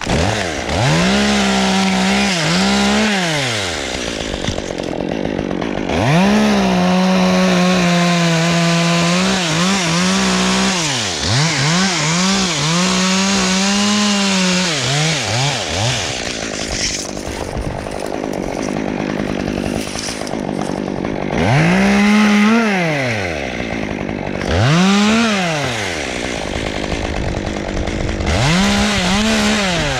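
Gasoline chainsaw repeatedly revved to full throttle, held for a few seconds at a time as it cuts the pine, then dropping back toward idle. There are two long held runs of about four seconds each, then three short revs near the end.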